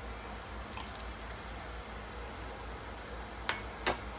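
Raw deboned chicken thigh meat being handled and gathered by hand on a plastic cutting board, soft and wet, with two sharp clicks about half a second apart near the end, the second the loudest.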